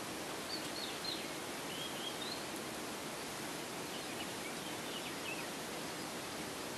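Steady outdoor background hiss, with faint high-pitched bird peeps in three short clusters.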